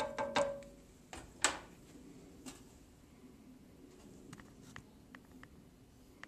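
A spoon knocking several times against a metal pot, one knock leaving a short ring from the pot, then a couple more knocks about a second and a half in. After that, only faint little pops from the thick lentil stew simmering.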